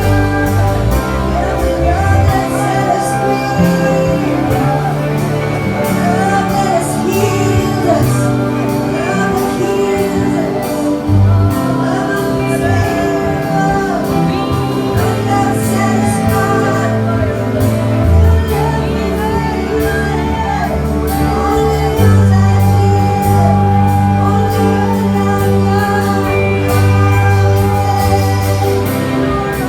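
Live worship music: singing over sustained instrumental chords with a low bass line that changes every couple of seconds.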